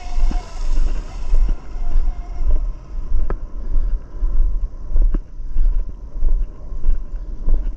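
Twin brushless electric motors of a Pro Boat Miss Geico 36-inch RC catamaran whining at speed as the boat runs away across the water. The whine falls in pitch and fades within the first second or two, under heavy wind buffeting on the microphone that pulses throughout.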